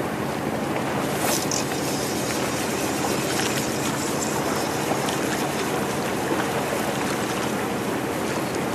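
Small waves washing against the breakwater's rocks over a steady engine drone, with a brief hiss about a second in.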